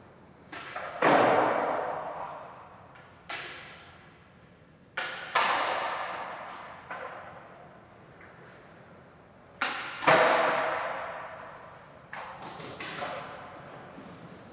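Skateboard knocks and clacks of the board hitting the ground, each loud impact often following a smaller knock and trailing off into the wheels rolling and fading over a couple of seconds; this happens three times, with lighter knocks in between.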